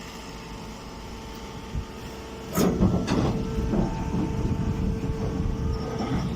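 Hydraulic hay press baler running with a steady machine hum. About two and a half seconds in, a loud clank starts a few seconds of rumbling, rattling mechanical noise as the press works.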